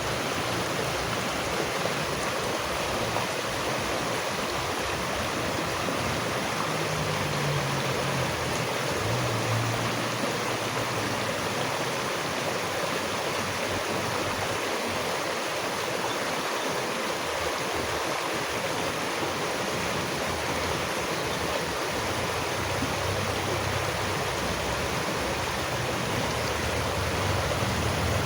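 Running water: a steady, unbroken rush of flowing water such as a stream.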